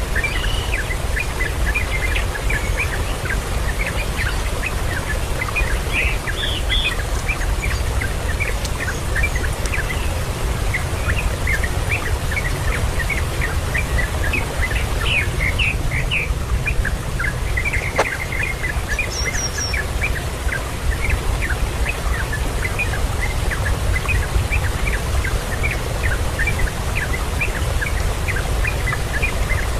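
Birds chirping: many short, rapid chirps repeating throughout over a steady low rumble, with a single click about 18 seconds in.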